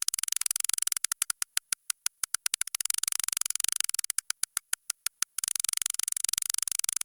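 Synthetic 'loading' sound effect: a fast stream of sharp digital clicks over a crackly hiss. It thins to separate ticks about a second in and again around four to five seconds, then turns dense again.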